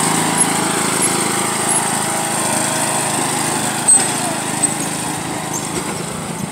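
John Deere riding lawn mower's engine running steadily under load while it pulls a towed rider through mud, slowly fading as the mower drives away.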